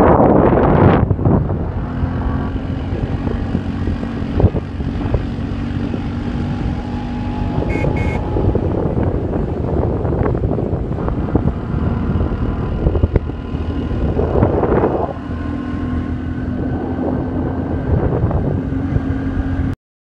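Steady rumble of a moving vehicle, with a low engine hum and wind buffeting the microphone, cutting off abruptly near the end.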